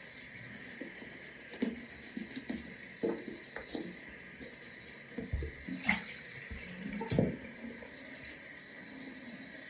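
Tap water running into a sink while a wet sneaker is rinsed and handled under it. Irregular soft squelches and knocks come from the shoe over a steady water hiss.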